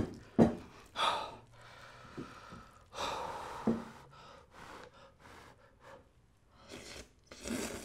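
Eating hot somen noodle soup with chopsticks: breathy blowing and slurping in separate bursts, the longest lasting about a second. A light click comes about half a second in.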